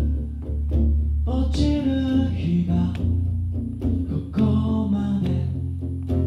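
Acoustic guitar and acoustic bass guitar playing a song together, with a voice singing over them.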